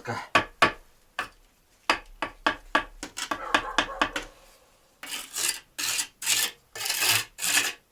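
A bricklaying trowel scraping adhesive across bricks in a series of short scraping strokes broken by brief pauses. The last strokes are longer and evenly spaced, about three a second.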